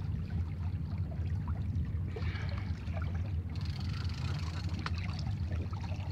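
Small boat's engine idling steadily, a low even hum, with faint water noise around the hull.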